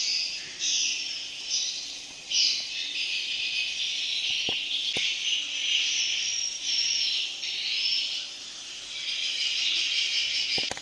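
Swiftlet calls: a continuous, high-pitched twittering chatter of many swiftlets. It is a Malaysian-style swiftlet call track of the kind played from speakers to lure swiftlets into nesting houses.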